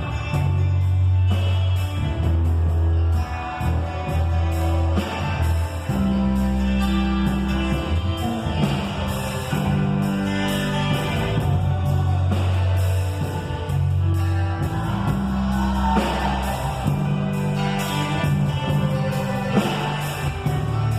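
A band playing rock-style music with guitar, a strong bass line that changes note every second or two, and a steady beat.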